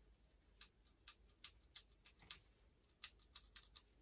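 Aperture ring of an SMC Pentax-M 28mm f/2.8 lens being turned through its click stops: about ten light, sharp clicks, a few a second, starting about half a second in with a short pause midway.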